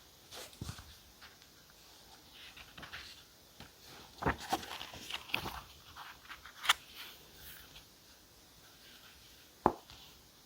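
Close-up desk handling sounds of diary decorating: paper and stationery rustling and scraping in short irregular bursts, with a sharp click about two-thirds through and another near the end.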